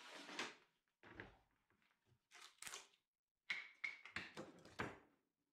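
Quiet workshop handling: a string of short, sharp knocks and clicks as a quick-release bar clamp is loosened and a freshly cut board is handled on a work stand, most of them bunched in the second half.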